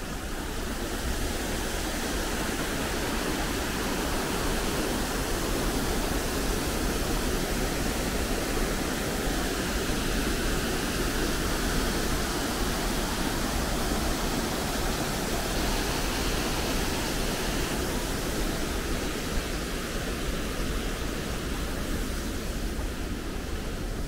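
Steady rush of falling water from Kegon Falls, an even roar without breaks that grows a little louder about a second in.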